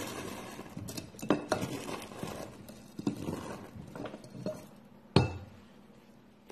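Tongs stirring and scooping dry soap curls in a glass vase: crisp rustling and crunching of the shavings, with several sharp clinks of the tongs against the glass, the loudest near the end.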